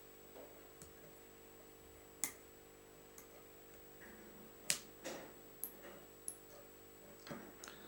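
Scattered small clicks and taps from hands handling fly-tying tools and materials at a hook, the two sharpest about two and four and a half seconds in, over a faint steady hum.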